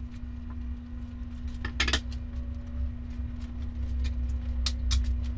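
Chicken quesadillas sizzling in a nonstick frying pan: scattered crackles and pops from the cheese or chicken, the strongest about two seconds in and again near the end, over a steady low hum.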